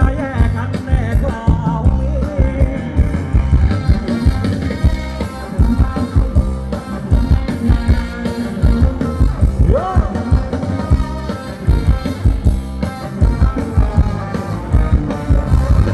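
Live band playing a Thai ramwong dance song through loud amplification, with a steady, heavy bass beat and a voice singing over it.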